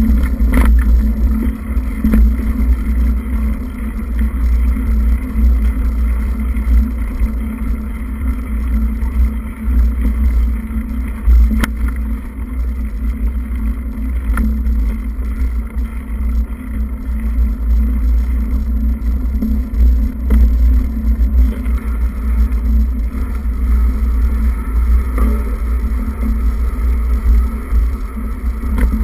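Steady low rumble of wind buffeting the microphone of a camera moving along a dirt trail, with a constant hum underneath and a few brief knocks.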